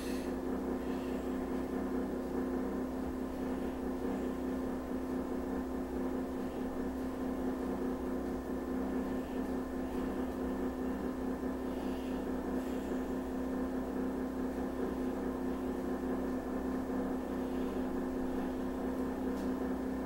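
Hamilton Beach microwave oven running with a steady electrical hum.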